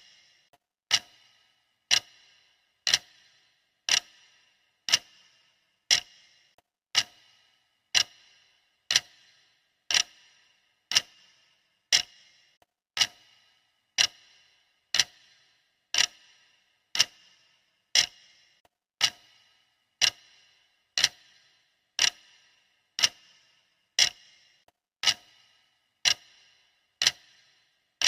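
Clock ticking steadily, one sharp tick each second, each with a short ringing tail.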